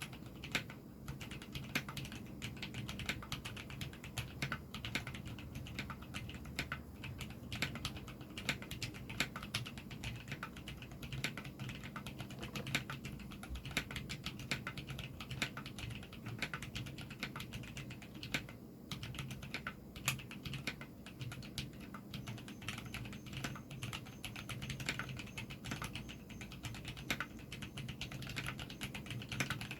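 Typing on a rebuilt JER-06 custom mechanical keyboard fitted with Zealios tactile switches: a steady run of keystroke clicks with no pauses of note.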